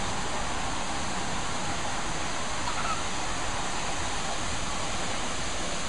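Steady rushing roar of Horsetail Falls, water falling and splashing into its pool, holding an even level throughout.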